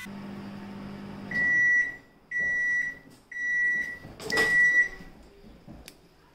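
LG microwave oven ending its cycle: the low running hum dies away, then the oven beeps four times, each high beep about half a second long and about a second apart. A clunk of the door being pulled open comes with the last beep, and a small click follows.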